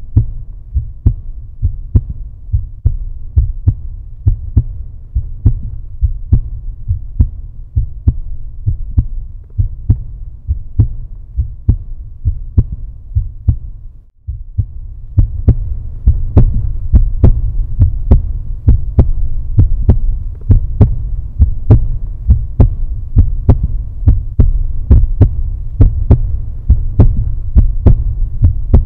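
Heartbeat sound effect, a steady pulse over a low droning hum, used as suspense sound. It cuts out briefly about halfway through and comes back louder.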